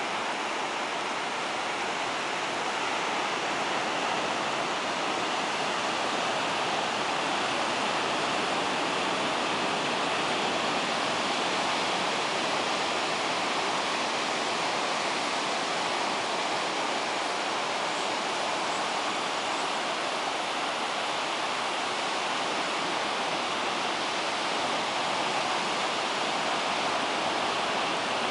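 Ocean surf on a beach: a steady, even roar of breaking waves with no single crash standing out.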